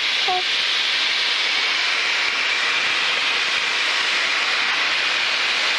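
Steady rushing hiss of a Piper Tomahawk's cabin noise in flight, heard through the aircraft intercom, so it sounds thin, with little low end and no deep engine drone.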